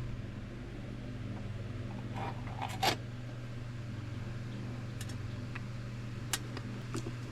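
A few light clicks and scrapes from handling the small parts of a gauge cluster, the loudest about three seconds in, over a steady low hum.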